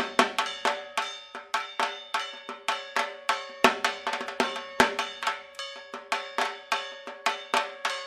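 Dhak, the Bengali barrel drums of Durga Puja, beaten in a fast, even rhythm of about four strokes a second, with a steady ringing tone held beneath the strokes.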